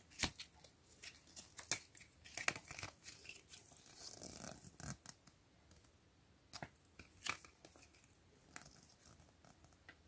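A small folded paper catalogue being unfolded and handled: faint paper crinkling and rustling in quick short crackles, busiest in the first half, with only a few single crackles later.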